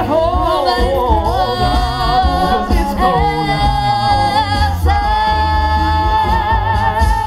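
An a cappella vocal group, men's voices and a woman's, singing in close harmony into microphones over a deep sung bass line, with no instruments; about five seconds in they settle onto a long held final chord.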